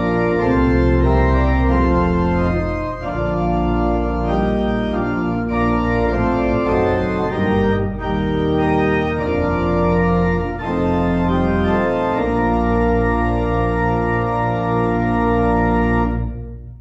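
Organ playing full sustained chords over a deep bass line, dying away near the end.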